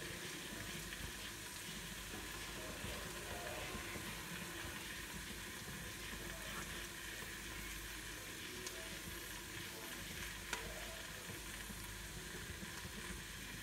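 Cheese-topped chicken loaded fries sizzling in a hot nonstick frying pan, a steady hiss, while a fork works into the pan to serve; a light click about ten seconds in.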